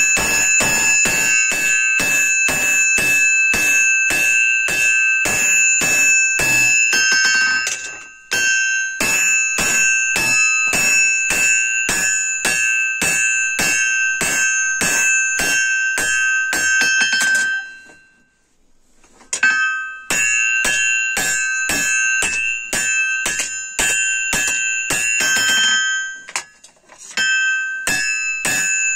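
Hand hammer striking red-hot leaf-spring steel on an anvil, about three blows a second, with the anvil ringing between blows. The hammering stops briefly about eight seconds in, for longer after about eighteen seconds, and once more near the end.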